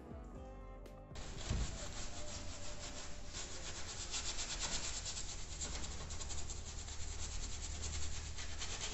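Soapy wash mitt rubbing over a wet car headlight and paintwork in quick back-and-forth strokes during a hand wash, starting suddenly about a second in.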